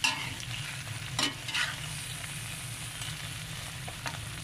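Shrimp sizzling in a metal pan while a metal spatula stirs them, scraping against the pan a few times: once at the start, twice about a second in, and once near the end.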